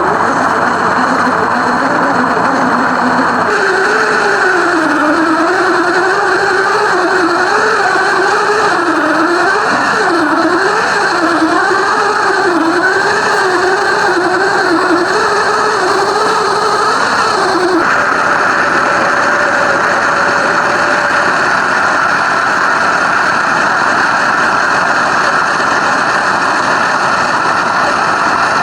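Simulated car engine sound from an FMS RC car's sound unit. It runs at a steady idle note at first, then its pitch rises and falls over and over with the throttle for about fifteen seconds. About two-thirds of the way in it changes abruptly to a steady, higher note.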